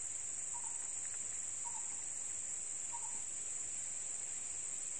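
Steady high-pitched insect chorus, a continuous drone, with three faint short calls about a second apart.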